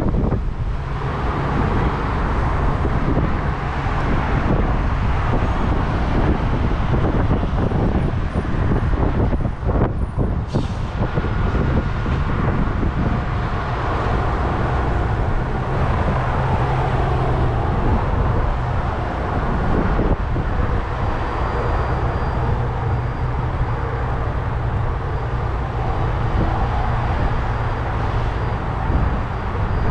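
Steady low rumble of idling vehicle engines and passing traffic while the car sits stopped at a light. A single sharp click comes about a third of the way in.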